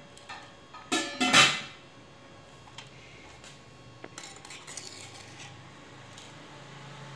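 Metal serving spoon scraping and clinking against a clay cooking pot and a serving dish while rice is dished out, with a loud cluster of scrapes and clinks about a second in and lighter clatter about four seconds in.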